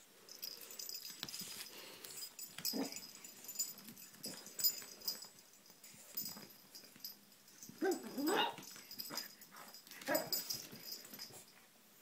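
Pug puppy making scattered short vocal sounds, the loudest a pair of rising cries about eight seconds in and another about ten seconds in, as it objects to an unfamiliar heart-shaped bowl.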